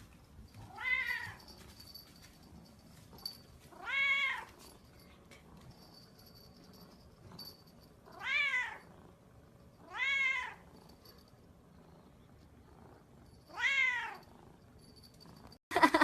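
A cat meowing five times, a few seconds apart, each meow short and rising then falling in pitch.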